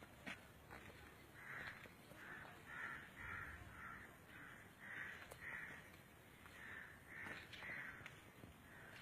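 Crow cawing, about ten faint caws in three short runs, with a few small clicks in the background.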